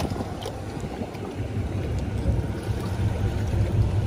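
Wind noise rumbling on the microphone, stronger from about a second and a half in, over small waves lapping and splashing against the pier's boulders.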